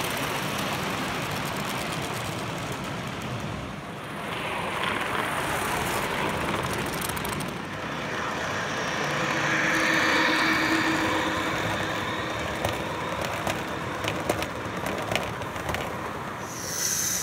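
A Gauge 1 model train running along the layout track, a steady rolling noise with a run of light clicks in the latter half, over steady background noise.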